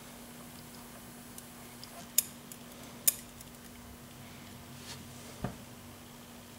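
Small metallic clicks and taps of lock pins and springs being taken out of a Yale pin-tumbler drawer lock and set down, with two sharper clicks about two and three seconds in and a duller knock near the end.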